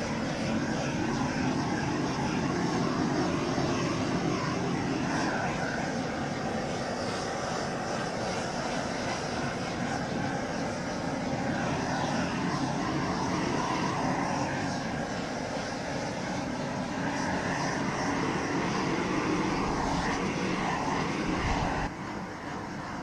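Propane shrink-wrap heat gun running steadily as it shrinks the plastic cover down onto the boat, then cutting off suddenly near the end.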